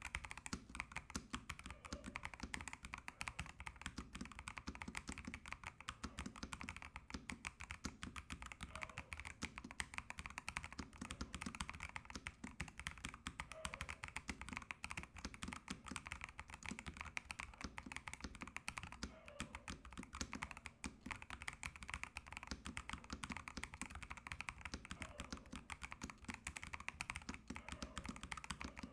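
Continuous fast typing on a Fantech MaxFit81 mechanical keyboard fitted with Ajazz switches and Fantech PBT keycaps: a dense, even run of keystroke clacks, a keyboard sound test.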